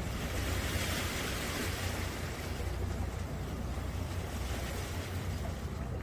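Small sea waves washing in steadily, with wind rumbling on the microphone.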